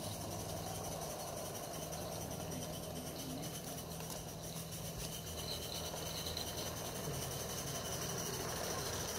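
Two 16mm-scale live-steam garden railway locomotives, a Roundhouse Taliesin and an Accucraft Lyd, double-heading a train: a steady sound of steam and running gear with no clear beat.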